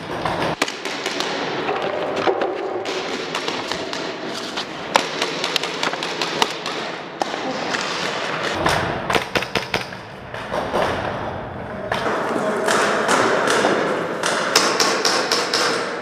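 Airsoft pistols firing: sharp cracks, some in quick runs of several shots, scattered throughout, over a constant rustle of movement and gear close to the camera.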